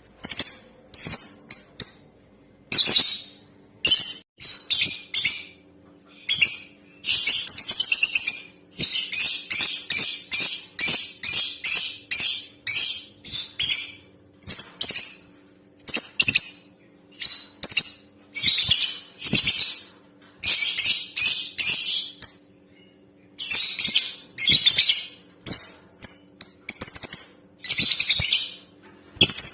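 Female lovebird calling: high-pitched chirps in quick runs, some fast enough to run together into rattling strings, with short pauses between runs.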